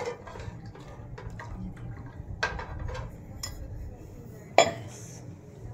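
Steel ladle stirring thick curry gravy in a metal kadai, clinking against the pan several times, with one loud metallic clank about four and a half seconds in.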